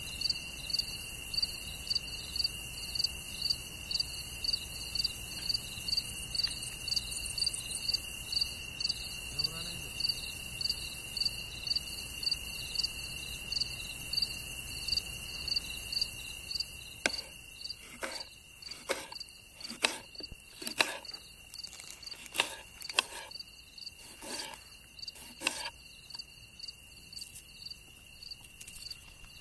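Crickets chirping at night, a regular chirp about twice a second over a steady high insect trill. Past the middle the chirping fades, and close, irregular sharp clicks and taps join in.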